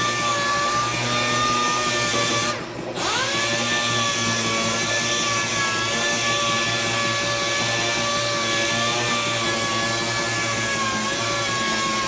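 A handheld power tool running steadily with a high whine. About two and a half seconds in, it briefly drops out, then spins back up to speed.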